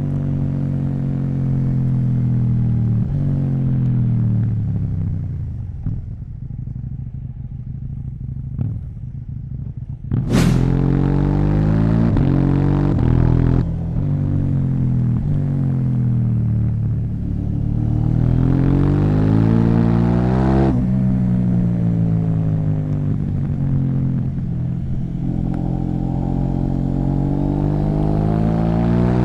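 KTM 790 Duke's parallel-twin engine through an Akrapovic exhaust, under way: the revs fall away and the engine goes quieter for several seconds, then a sharp crack about ten seconds in. After that it pulls up through the gears, the pitch rising and dropping at each shift, then settles into steady running.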